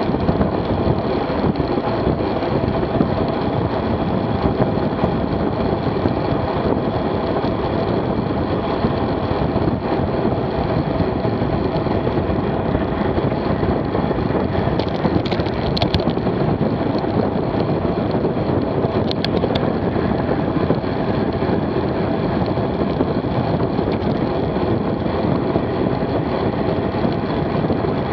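Steady wind rush on a bicycle-mounted action camera's microphone, with road-bike tyres running on asphalt at about 28 mph. A few brief clicks come about halfway through.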